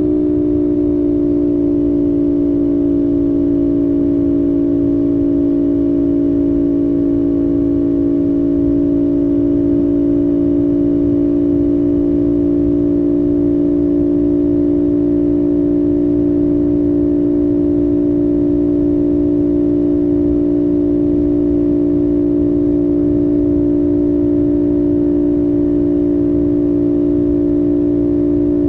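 CFMOTO 450SS 449 cc parallel-twin engine running at a steady cruising speed, a constant drone that eases down slightly in pitch in the first second and then holds steady over a low rumbling noise.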